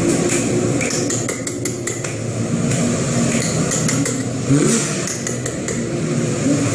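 Pomeranian Pouter pigeons cooing: low, overlapping coos, with a few single coos rising and falling in pitch. A quick run of sharp clicks comes about a second in.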